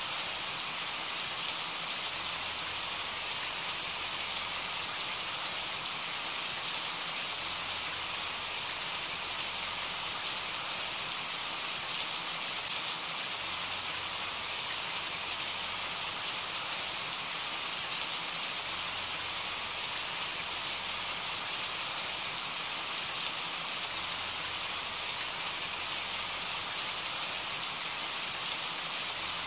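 Steady rain falling: an even hiss with scattered ticks of drops.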